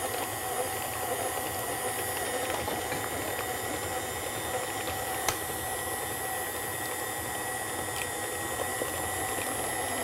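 KitchenAid Classic stand mixer running steadily, its flat beater churning cheesecake filling of cream cheese and eggs in a stainless steel bowl, with a steady whine. A single light tick about five seconds in.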